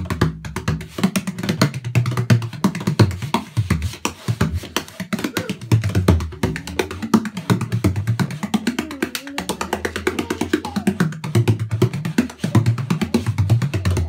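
18-inch Paul MacCauley tunable bodhrán played in a fast, continuous rhythm of strokes, its deep tones shifting up and down in pitch as the hand pressed on the back of the skin changes.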